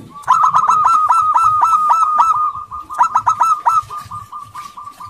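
Zebra dove cooing: a rapid run of short staccato notes, then a second loud run about a second later, trailing off into softer repeated notes.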